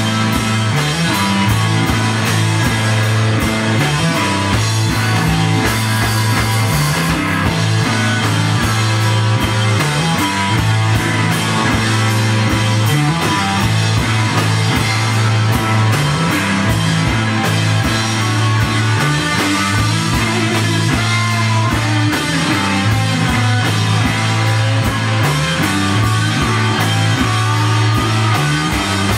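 Live rock band playing loudly with electric guitar, bass and drum kit, and no singing. A steady low bass line runs under the guitar, with constant drum hits throughout.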